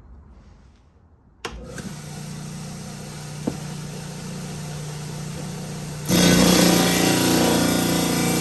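A lapidary diamond-blade trim saw switches on about a second and a half in and runs with a steady hum; about six seconds in it gets much louder as the blade starts cutting into a coprolite (fossilised dung).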